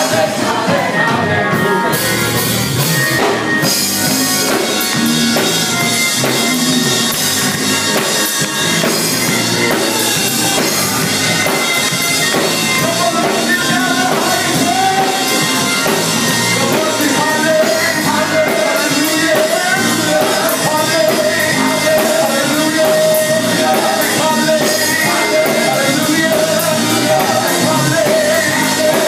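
A gospel vocal group singing live into microphones with instrumental accompaniment, loud and steady.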